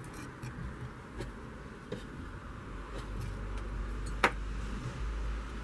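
Light handling sounds of gingerbread pieces being cut and moved on a silicone baking mat: a few faint clicks and one sharp tap about four seconds in, over a steady low rumble.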